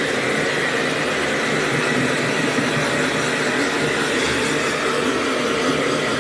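Electric hair dryer blowing steadily, with a faint, even motor whine over the rush of air.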